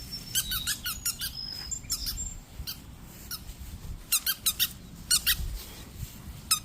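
A dog chewing a squeaky rubber toy ball, making bursts of short, high squeaks in quick runs of three to six with short gaps between.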